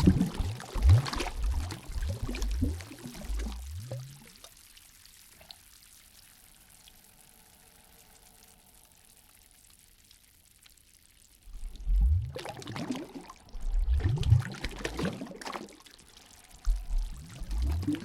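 Water sloshing and gurgling in bursts, with a lull of several seconds in the middle before the sloshing starts again.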